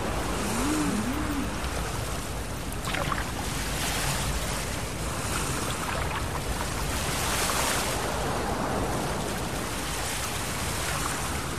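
Ocean surf washing in continuously, swelling louder a few times. Near the start a short low warbling call, beluga whale song, rises and falls twice.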